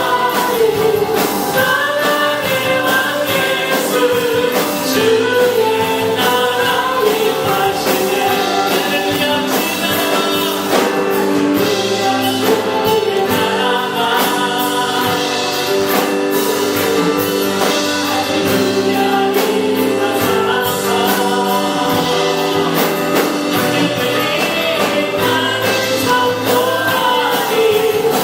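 A group singing a Christian praise song, with instrumental accompaniment and a steady beat.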